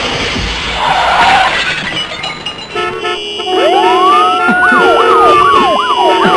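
Road-accident sound effect: a rough noisy stretch first, then a car horn held down from a little under halfway. Emergency sirens start soon after: one slow wail rising and falling, and a fast yelping siren over it.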